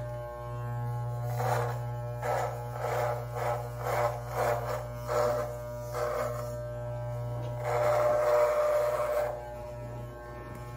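Electric beard trimmer buzzing steadily, with short raspy strokes about twice a second and a longer one near the end as the blades cut through beard hair.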